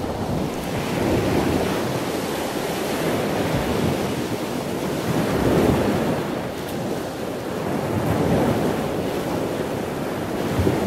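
Wind buffeting the microphone outdoors: a rushing, rumbling noise that swells and eases every couple of seconds.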